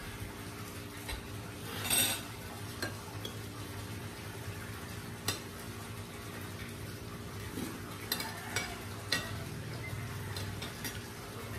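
A fork clinking and scraping on a ceramic plate while eating: scattered sharp clicks, with one louder, longer scrape about two seconds in, over a steady low hum.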